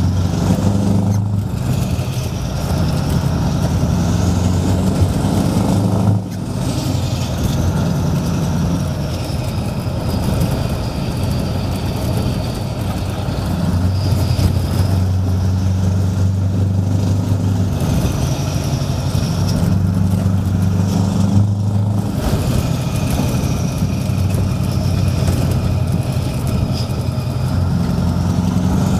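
Scania 164L 580 V8 truck engine with a loud open-pipe exhaust, heard from inside the cab while driving, the deep note rising and falling as it pulls. It breaks off briefly three times, about a second in, about six seconds in and near 22 seconds.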